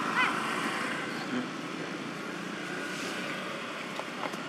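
Steady background noise like distant road traffic, with one short, high, arched squeak about a quarter second in.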